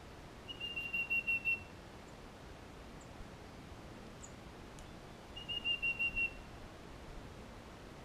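A songbird singing two quick phrases of short whistled notes, each a rapid, even series of about eight notes lasting about a second, the second phrase about five seconds after the first.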